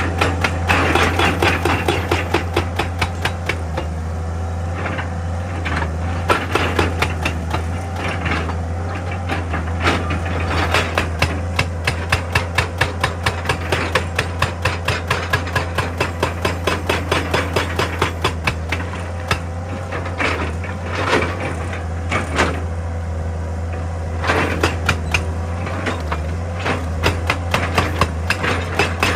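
Excavator-mounted hydraulic rock breaker hammering rock in fast runs of blows, several a second, with short pauses, over the excavator's steady diesel engine drone.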